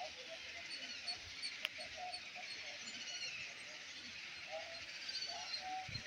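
Faint, steady chorus of many birds calling at a nesting colony: overlapping short chirps and squeaky notes. A single sharp click sounds about one and a half seconds in.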